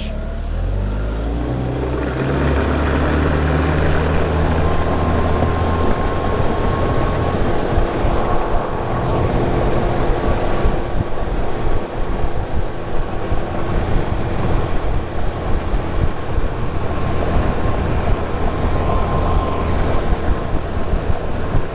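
20hp Tohatsu four-stroke outboard throttling up, its pitch climbing over the first two seconds. It then runs at speed under a loud rush of wind on the microphone and water against the hull.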